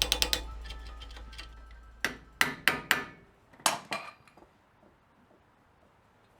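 Music fading out, then a series of sharp hammer taps, about six in two quick groups, the last about four seconds in.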